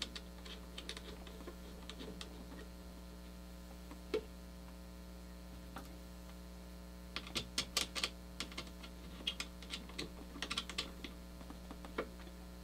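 Faint, irregular small clicks and taps of metal mounting posts being fitted and screwed in by hand around a CPU socket, busiest from about seven to eleven seconds in, over a steady low electrical hum.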